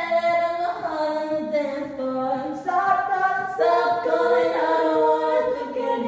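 A cappella vocal music: several voices singing held notes in close harmony, with no clear drum beat.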